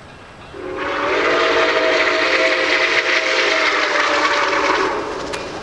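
Steam whistle of Nickel Plate Road 765, a 2-8-4 Berkshire steam locomotive, blowing one long, loud blast of several tones sounding together with a breathy hiss. It starts about half a second in and dies away about five seconds in.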